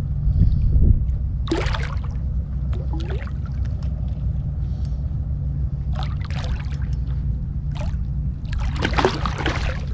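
Water splashing and sloshing around a fishing kayak while a hooked redfish is being fought, over a steady low rumble. Short splashes come about a second and a half in, around six and eight seconds, and a longer one near the end.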